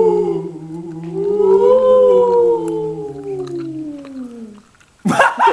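Human voices making a long, drawn-out howl: one voice glides up and then slowly down in pitch over a steady low hum that drops a step partway through. Near the end comes a short, loud vocal outburst.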